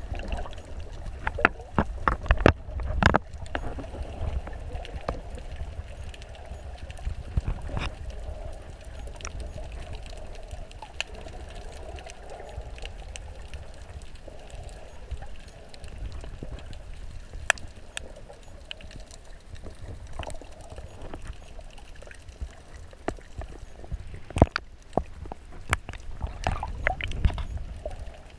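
Underwater sound picked up through a GoPro's waterproof housing: a muffled low rumble of moving water with gurgling, broken by scattered sharp clicks and knocks.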